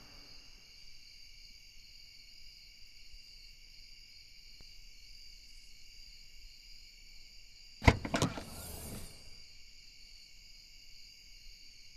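Crickets chirring steadily; about eight seconds in, a car trunk is unlatched and lifted open: a sharp click, the loudest sound, then a short rattle and rush of the lid swinging up.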